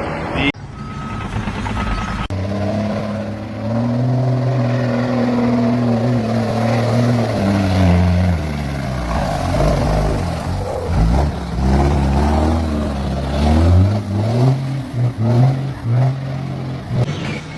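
Two short high beeps, then a heavy vehicle engine running loud, its pitch holding steady, dropping and rising again, with quick rises and falls near the end as it is revved.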